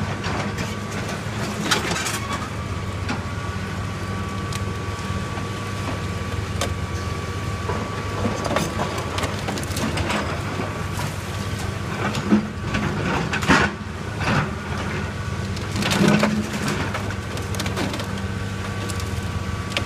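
Excavator engine running steadily while its bucket tears at the roof and eaves of an old brick building, with irregular crunches and cracks of breaking timber and masonry, the loudest cluster about two-thirds of the way in.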